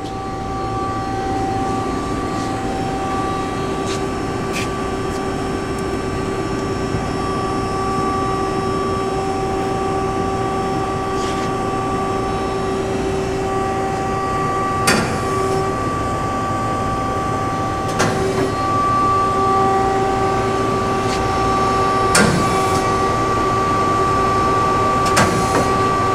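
1986 Tsugami MA-3H CNC horizontal machining center running a program: a steady mechanical hum with several whining tones that drop out and come back, and a few sharp clacks from the machine's mechanisms, the last ones in the second half.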